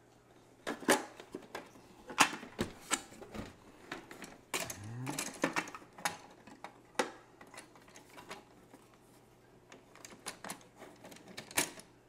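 Irregular sharp plastic clicks and knocks from a Keurig B70 coffee maker being handled, turned upright and having its top cover worked loose and lifted off, with a short rising squeak about five seconds in.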